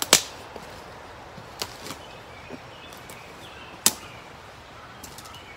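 Footsteps through dry leaf litter and twigs in woodland, with two loud sharp cracks, one just after the start and one about four seconds in, and smaller snaps between them.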